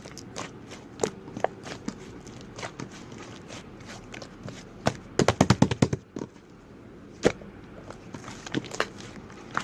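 Slime being squished and poked by hand, making scattered sticky clicks and pops, with a quick burst of loud clicks a little past halfway.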